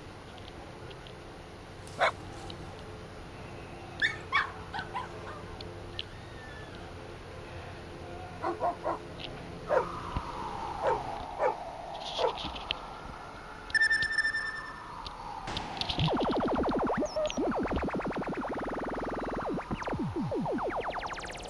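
Scattered short, sharp yelps or clicks over a steady background, then electronic sci-fi sound effects: a gliding tone, a short beep, and from about sixteen seconds in a loud, fast pulsing sweep.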